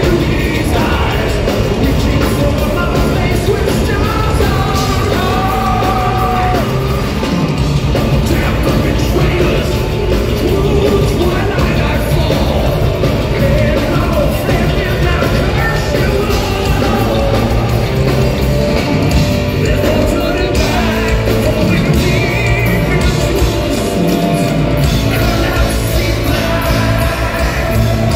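Live progressive metal band playing at full volume: distorted electric guitar, bass, drums and keyboards under a male singer's belted vocals, heard from the audience.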